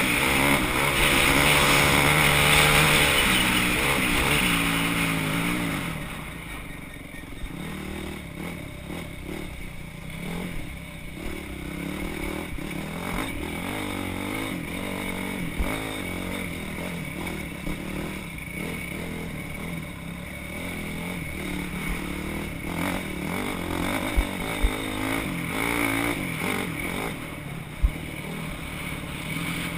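Off-road motorcycle engines revving. One bike is loud and close for the first few seconds, then fades away. Other bikes keep revving further off, with a few sharp knocks.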